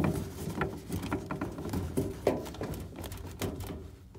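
Irregular small clicks and knocks of plastic as hands work the corrugated drain hose and grey plastic hose clips of a dish-drawer dishwasher.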